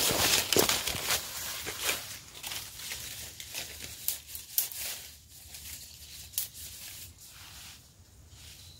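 Dry leaf litter crackling and clothing rustling as a person steps in and crouches down. The noise is loudest in the first two seconds, then thins to scattered small crackles and clicks.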